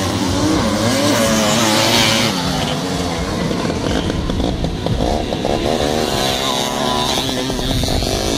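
Several off-road racing motorcycles running hard on a dirt track, their engine notes rising and falling through revs and gear changes. A bike accelerates with a steeply rising note in the second half and again near the end.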